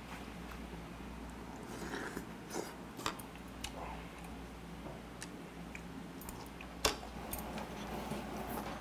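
A person chewing a mouthful of food, with scattered light clicks of a metal spoon and chopsticks against a bowl. The sharpest clink comes about seven seconds in, over a low steady hum.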